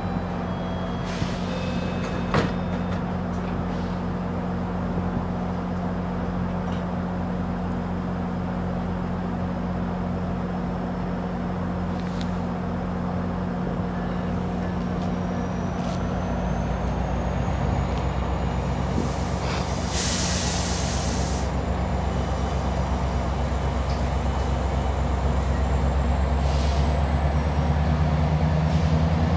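A diesel-hauled GO Transit bilevel commuter train at the platform: the engine hums steadily, then throttles up louder about halfway through as the train starts to depart. A short hiss of air, typical of the brakes releasing, comes about two-thirds of the way in, followed by a slowly rising whine as the train begins to move.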